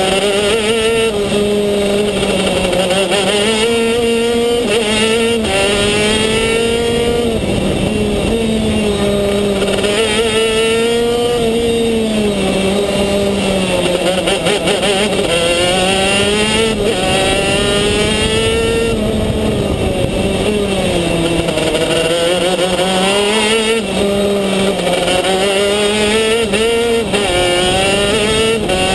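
Racing kart engine heard onboard at close range, its pitch climbing under acceleration and dropping when the driver lifts for the corners, several times over.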